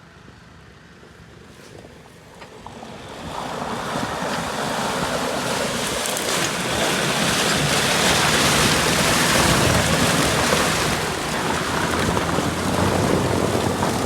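Off-road 4x4 pushing through a muddy, water-filled rut, wheels churning and splashing; the noise swells up about three seconds in and stays loud. The vehicle ends up grounded on its belly in the rut.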